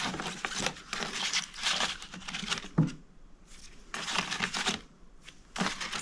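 Glossy photo prints rustling and sliding against one another as a gloved hand shuffles through a stack of them, in irregular bursts with a short lull about three seconds in.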